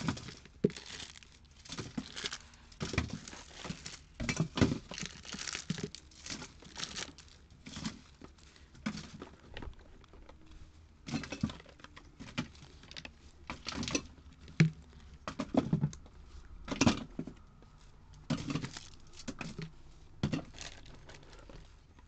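Cosmetic products being handled and rearranged: a plastic bag crinkling, with irregular light knocks and taps as bottles, tubes and small boxes are picked up and set down.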